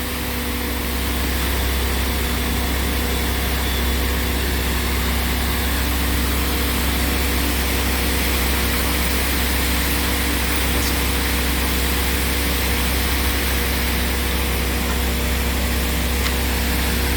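Concrete mixer truck's diesel engine running steadily: a constant low drone with a few even tones that do not change.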